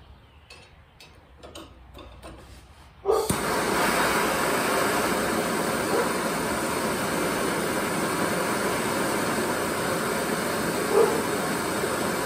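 Handheld propane torch lit about three seconds in with a sudden whoosh, then burning with a steady hiss. Before it lights there are only faint handling clicks.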